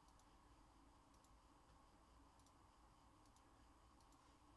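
Near silence: room tone with a few faint, scattered clicks, about one a second.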